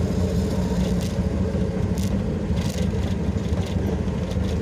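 Tour jeep's engine running steadily as it drives, heard from on board, with a few brief rattles about halfway through.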